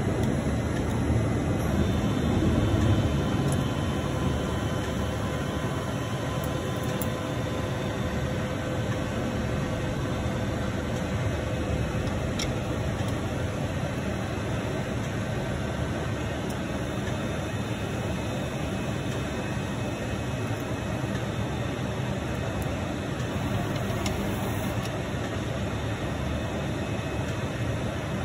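Steady mechanical hum and hiss of a powered-up automatic box wrapping machine standing idle, with a couple of faint clicks.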